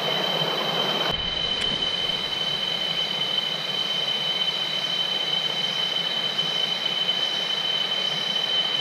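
Shallow rocky stream running over small rapids, with a steady high-pitched drone of insects, likely cicadas, over it.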